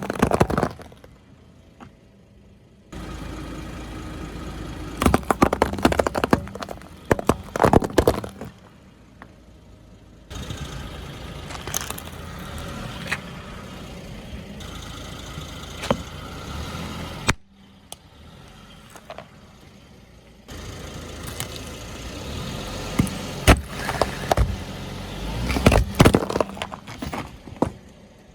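Car rolling over objects and crushing them, its engine running low with bursts of crunching and cracking under the tyres. This comes in three separate takes with short quieter gaps between them.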